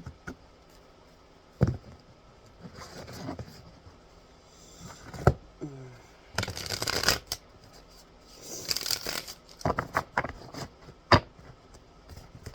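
A deck of tarot cards being shuffled by hand: sharp taps and slaps of the cards, with two longer rustling runs of shuffling in the middle.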